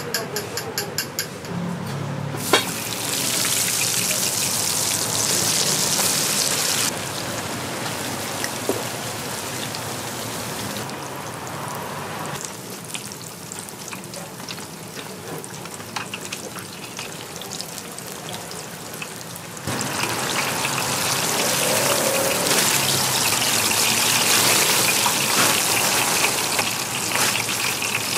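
Donut dough deep-frying in hot oil, a steady crackling sizzle. It changes level abruptly several times: louder between roughly 3 and 7 s and again from about 20 s on, quieter between about 12 and 20 s.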